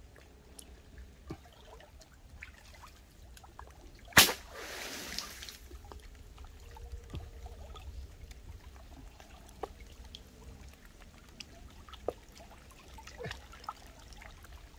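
Shallow water trickling and dripping as someone gropes for fish by hand, with one sharp splash about four seconds in followed by a short rush of water.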